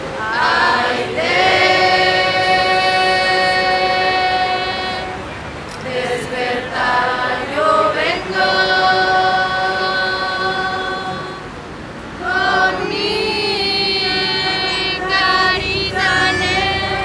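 Choral singing in slow, long-held notes, in phrases of a few seconds with short breaks between them.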